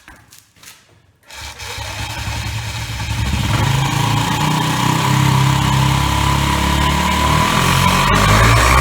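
Honda Zoomer's 49cc four-stroke single-cylinder engine starting a little over a second in, then running and revving up with a newly fitted GY6 clutch and clutch bell. It runs evenly, sounding all right on this first test run.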